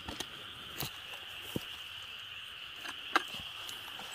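Steady high-pitched insect chorus, with a few short sharp clicks and knocks scattered through it, the loudest just after three seconds in.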